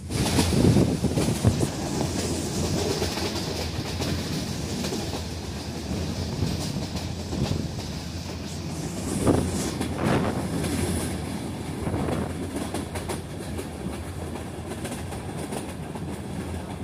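Metre-gauge passenger coach running along the track, with steady rolling noise and the clickety-clack of its wheels over the rail joints, heard from an open coach window. It is loudest about a second in and again around nine seconds in.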